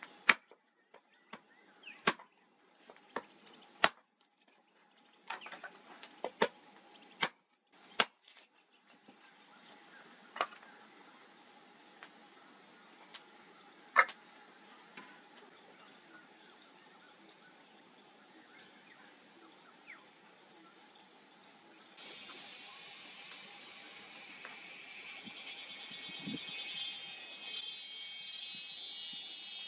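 Campfire being tended: about a dozen sharp clicks and snaps of dry sticks in the first eight seconds, and a couple more later. The wood fire then burns with a steady crackle that grows louder from about twenty-two seconds. A constant high insect buzz runs underneath.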